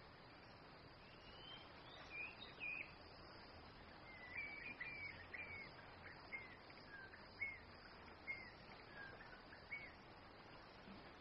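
A bird chirping: a string of short, high notes, each rising and falling, roughly one every half second to a second, over a faint steady hiss of forest ambience.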